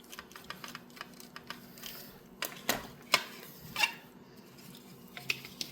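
Light, scattered clicks and taps of small screws and tools being handled while a graphics card is taken apart, a few sharper ticks between about two and four seconds in.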